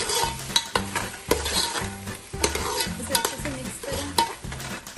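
A spoon stirring chunks of boiled potato into frying tomato masala in an aluminium pot. It knocks and scrapes against the metal many times, over a steady sizzle from the pan.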